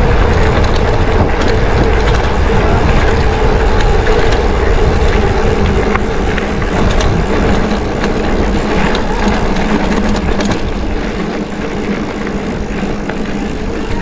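Mountain bike tyres rolling over a dirt road, with a steady rumbling rush and scattered small rattles and clicks from bumps. Wind on a handlebar-mounted action camera's microphone adds heavy low buffeting, which eases a little near the end.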